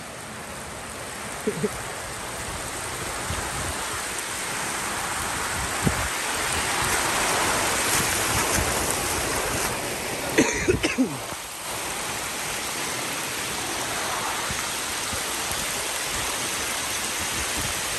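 Rainwater running fast down a street gutter, a steady rushing, with rain falling. It grows louder midway as the microphone nears the flow. A brief voice-like sound breaks in about ten seconds in.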